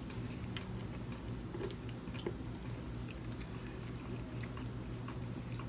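A person chewing a mouthful of sushi close to the microphone, with faint scattered small mouth clicks.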